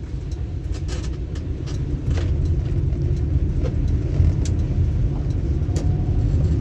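Inside a car driving on a rain-soaked road: a steady low rumble of engine and tyres on wet tarmac, which gets a little louder about two seconds in as the car picks up speed. Scattered light ticks sound over it.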